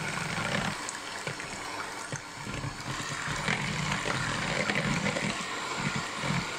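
Electric hand mixer running steadily, its twin beaters whisking two raw eggs in a plastic bowl: motor whir with the liquid egg splashing and the beaters ticking against the bowl.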